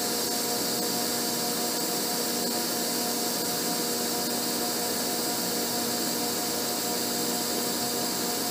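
Abene horizontal milling machine running an arbor-mounted cutter through a slot in a bushing, a steady cutting noise over a constant machine hum.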